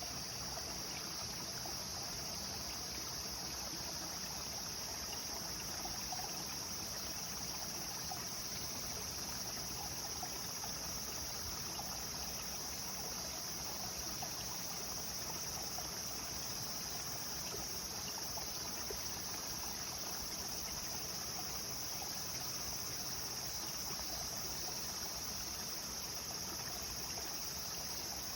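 Clear stream water running and trickling steadily, with a steady high-pitched drone above it.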